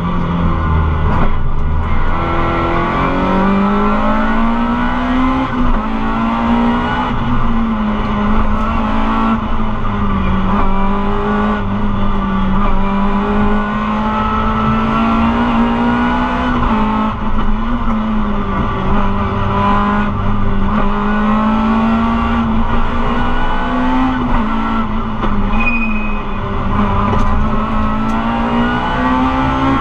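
Rally car's engine heard from inside the cabin, its note rising and falling over and over with the gear changes and throttle, over steady road noise.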